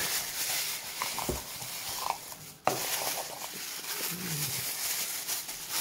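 Crumpled packing paper and a plastic bag rustling and crinkling as they are pulled out of a cardboard box, with a sharp click about two and a half seconds in.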